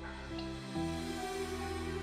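Background music of soft, sustained held chords, shifting to a new chord about three-quarters of a second in.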